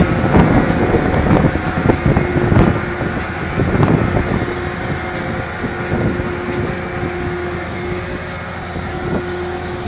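Giant round baler running under engine power, with a steady engine hum and irregular knocks and clatter from the machine over the first four seconds or so, then a steadier run. Wind buffets the microphone.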